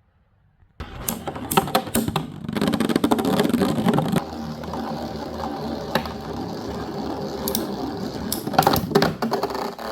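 A Beyblade spinning top whirring steadily on a hard plastic surface, with sharp clicks and rattles at the start and scattered clicks throughout.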